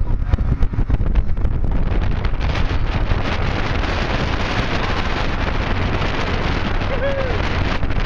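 Wind buffeting the microphone on a speedboat running at speed, over the rush of water along the hull and the boat's motor. From about two and a half seconds in, a hissing rush of spray grows louder, and near the end there is one brief high cry.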